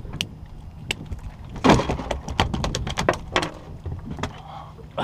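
A run of sharp knocks and clicks on a fibreglass boat deck, with one heavier thud about a second and a half in.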